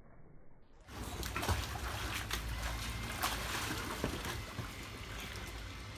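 Water splashing and sloshing in an inflatable paddling pool as children wade and move through it, starting about a second in, with many small sharp splashes over a steady low rumble.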